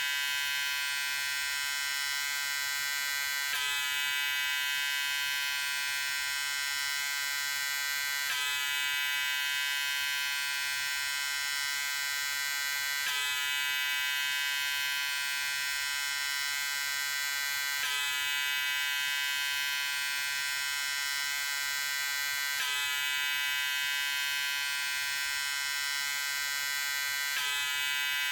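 Electric razor running with a steady, high buzz, with a faint seam every five seconds or so where the recording loops.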